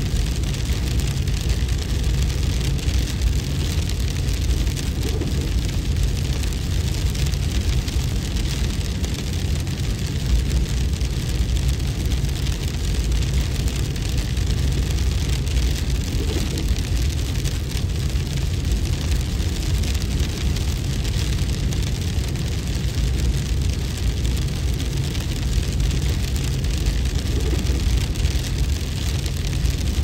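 Steady, unbroken storm noise: a deep wind rumble under a fine, even patter of hail.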